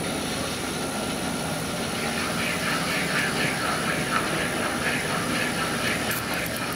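Seat and guide machine spindle running with a steady high whine while a homemade pilot-guided cutter cuts a valve spring seat into a Honda B20 aluminium cylinder head, taking it down for beehive valve springs. A rhythmic scraping from the cut, about three times a second, sets in about two seconds in.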